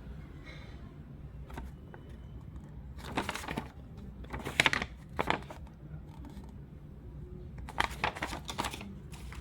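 Crinkly plastic packaging being handled in a few irregular bursts, the loudest about halfway through.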